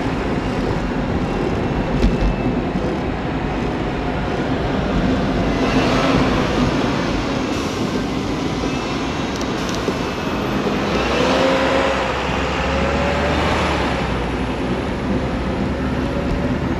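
Busy road traffic heard close up from a bicycle, dominated by double-decker buses running just ahead and alongside. The noise swells twice, about six seconds in and again from about eleven seconds, with an engine note rising in pitch.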